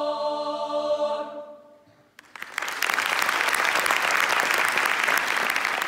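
A mixed choir holds a final sung chord that fades out about two seconds in; after a brief silence the audience breaks into applause, which quickly grows loud and stays steady.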